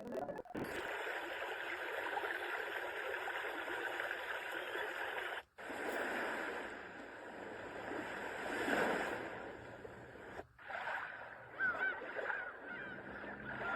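A plush baby white-noise sleep soother playing its preset soothing sounds one after another. First comes a steady rushing hiss, then a rush that swells like surf, then a rush with chirping bird calls over it. The sound cuts out briefly twice, about 5 and 10 seconds in, as it switches sounds.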